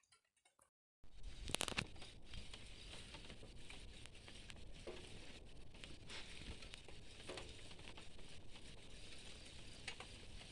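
Rain falling, a steady hiss with scattered drop taps, starting abruptly about a second in.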